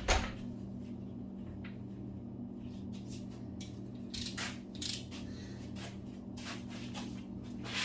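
Scattered light metallic clinks and clicks of hand tools being handled, sockets and a ratchet being picked up and set down, over a steady low hum.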